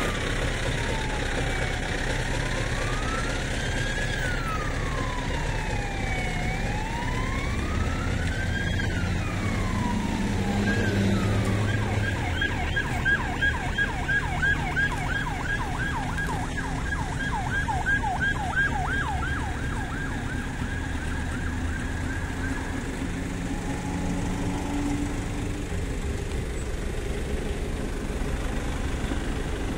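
An emergency-vehicle siren sounding a slow rising-and-falling wail, then switching to a fast yelp of about three sweeps a second that stops a little past two-thirds of the way through. A heavy engine idles steadily underneath.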